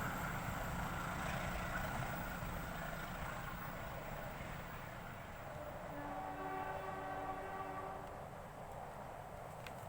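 Passing train's rumble fading as it moves away, then the CC203 diesel-electric locomotive's air horn sounding several notes at once for about two seconds, starting about six seconds in.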